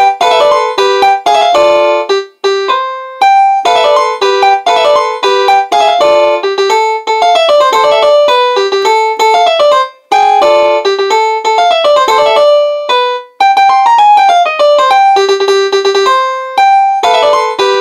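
A digital piano played by hand: a quick melody of short notes in the middle register, broken by a few brief pauses.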